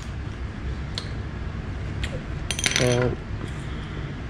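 A quick cluster of light metallic clinks a little past halfway, with a couple of fainter clicks before it, from a screwdriver and small spinning-reel parts being handled on a stone countertop.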